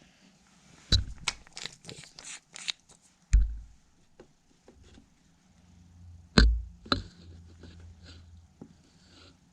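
Handling noise from a part-disassembled AT&T Calypso phone: a run of light clicks and taps, then two heavy thumps about three and a half and six and a half seconds in, with a few small ticks after the second.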